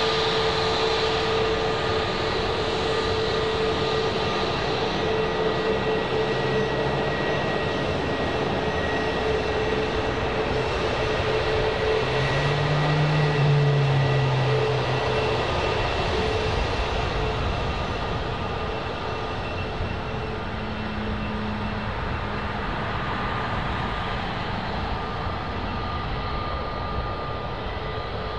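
Airbus A321neo jet engines at taxi power: a steady whine with several held tones over a rushing hiss. It swells about halfway through as the airliner rolls past, then fades a little near the end as it turns away.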